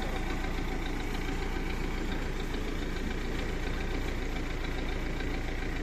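Tractor engine running steadily, without revving.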